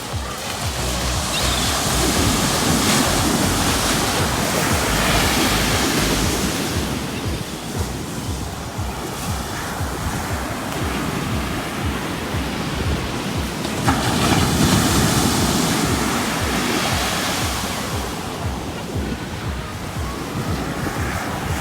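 Ocean surf: waves breaking and washing up the beach, swelling twice, with wind buffeting the microphone.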